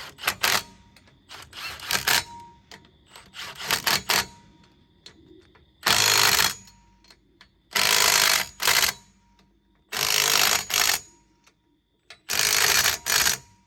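Cordless Milwaukee impact wrench tightening wheel lug nuts. It runs in a few short bursts, then four louder hammering bursts of about a second each, with pauses between them.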